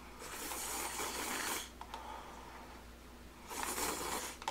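A person slurping hot tteokbokki from a bowl held close to the mouth, in two long, noisy slurps, the second starting about three and a half seconds in.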